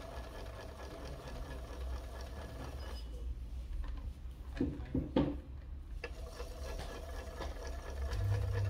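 Small battery motor of a toy washing machine running steadily, turning the drum with a low hum. A few light knocks come around the middle, and the hum grows louder near the end.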